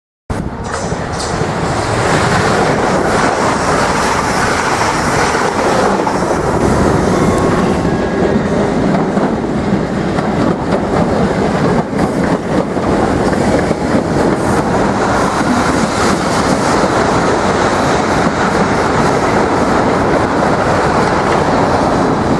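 Electric multiple-unit train running along the station platform, a loud, steady noise of wheels on rails that holds throughout.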